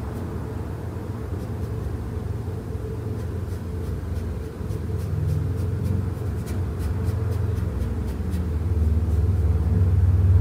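A low steady rumble that grows louder near the end, with faint scratchy strokes of a paintbrush on canvas.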